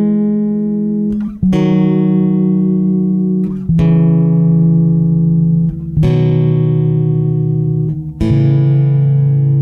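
Background music: slow guitar chords, each struck and left ringing for about two seconds before the next.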